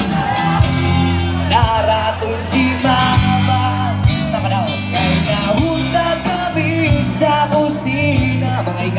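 A live band playing with a singer's voice carrying the melody over steady bass.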